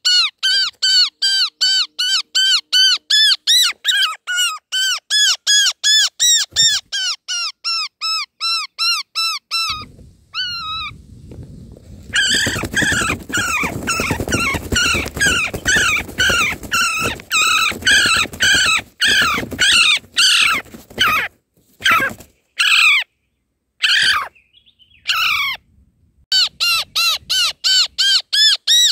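Roller nestlings giving harsh, rapidly repeated begging calls, about four a second. About a third of the way in a loud rustling, scuffling noise joins them for several seconds, and later the sound cuts out abruptly a few times before the calls resume.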